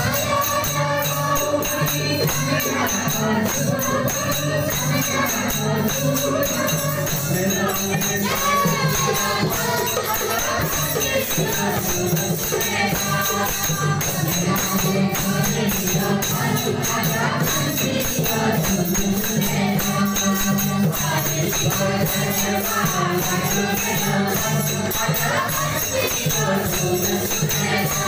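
Group devotional singing of a Nepali bhajan: a woman leads into a microphone and the seated group sings along, over hand clapping and a steady percussion rhythm.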